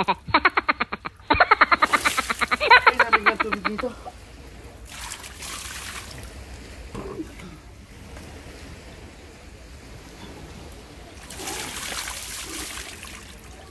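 Water poured from a plastic basin splashing over a bather and onto rocks, about five seconds in and again near the end. Before that, for about four seconds, a loud rapid pulsed trill with a wavering pitch.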